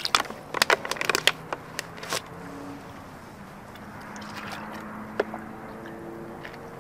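A dog lapping water, with a quick run of wet laps for about two seconds, then quieter with a faint steady low hum and a single click about five seconds in.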